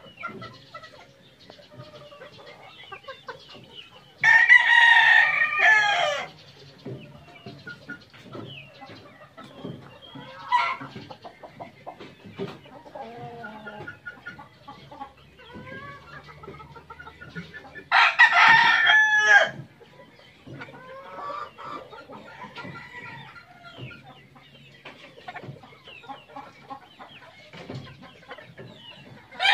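Rooster crowing twice, loud, each crow about two seconds long, about 4 seconds in and again about 18 seconds in, with a third crow starting right at the end. In between, a flock of young gamefowl chickens clucks and peeps softly.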